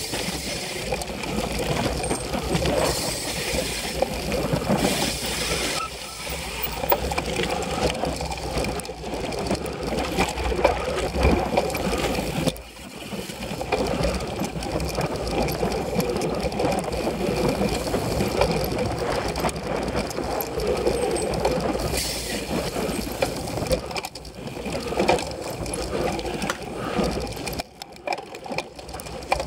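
Cyclocross bike ridden fast over a dirt course, heard close up: knobby tyres on dirt and the chain and frame rattling over bumps, with wind buffeting the microphone. The noise briefly drops off about 13 seconds in and again near the end.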